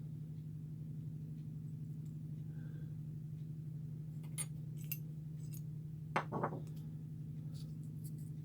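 A few light metallic clicks and clinks from handling a Stanley Defiance cast-iron utility knife and the loose spare blades kept inside it, with two short ringing clinks about six seconds in. A steady low hum runs underneath.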